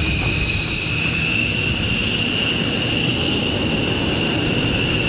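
Jet turbine engine running with a high whine that slowly rises in pitch, over a low rumble.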